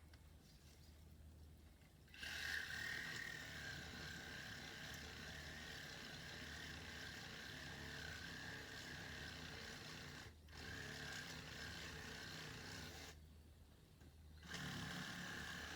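Chainsaw running under load and cutting wood: it starts suddenly about two seconds in, with a steady high engine note, breaks off for a moment once and then for about a second near the end before cutting again.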